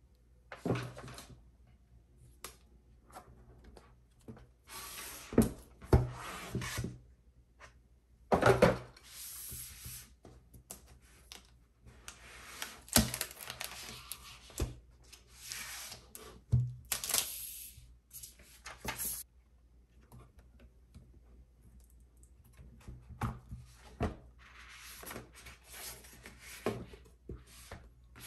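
Hands handling the Apple Magic Keyboard and its packaging: irregular rubbing and sliding noises with scattered clicks and light knocks, and a quieter pause a little past two-thirds of the way through.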